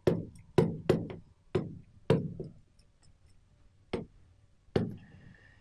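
A stylus tapping and clicking against the surface of a large touchscreen display while writing: about eight sharp, irregular taps, with a pause in the middle.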